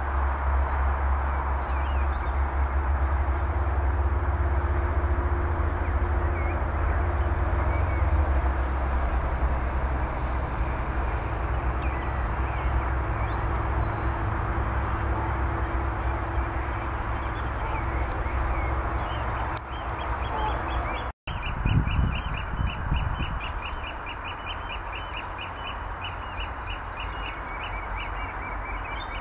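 Outdoor ambience: a steady rushing noise with a low rumble, and scattered faint bird calls. After a brief dropout about two-thirds of the way through, a fast, even series of high bird calls runs on.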